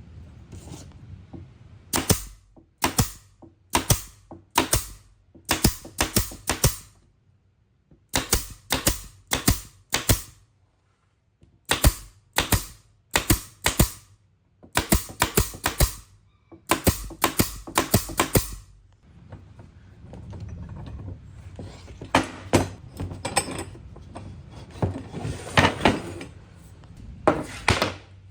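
Hammer blows on wood: sharp knocks in quick runs of several strikes with short pauses between. After about 20 seconds the knocks grow denser and rougher over a low hum.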